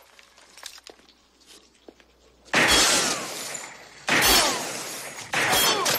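Three loud crashes of breaking glass, about a second and a half apart, each starting suddenly and trailing off as the shards fall.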